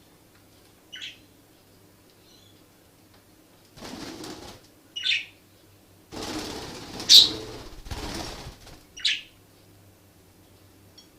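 Pet budgies (budgerigars) chirping briefly four times, with two spells of wing flapping in the middle.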